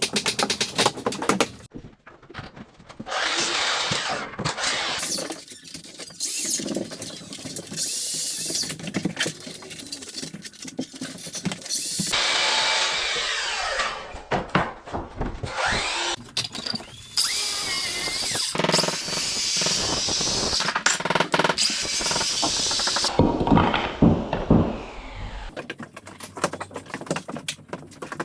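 Power tools working wood, mostly drill or driver running, in short stretches that start and stop abruptly, with sharp clicks and knocks between them and a whine that rises and falls in places.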